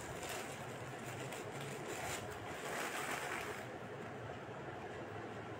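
Faint steady noise with soft rustling as a cloth face mask is handled and turned over, over a low steady hum.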